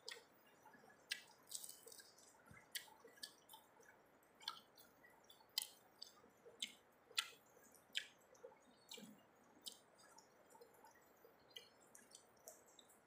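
Close eating sounds of a man chewing rice eaten by hand: sharp, irregular wet mouth clicks and lip smacks, one or two a second.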